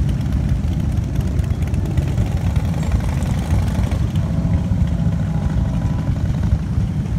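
A line of cruiser and touring motorcycles riding slowly past one after another, their engines running in a steady, low-pitched drone.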